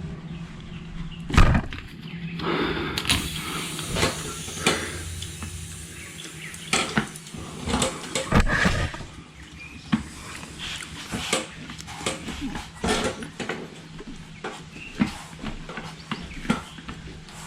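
Tire plug insertion tool being forced by hand into a tire puncture, giving scattered knocks, clicks and scrapes at an uneven pace, the loudest about a second and a half in and again around eight seconds.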